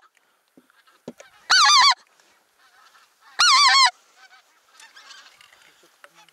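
Geese honking: two loud bursts of quick, wavering honks about two seconds apart, then fainter honks.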